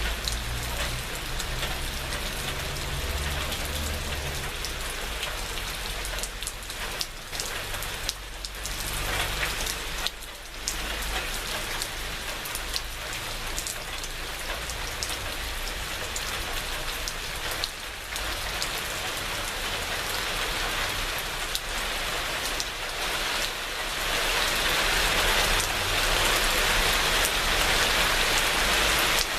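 Steady rain falling on surfaces, a dense hiss with individual drops ticking through it, growing louder near the end.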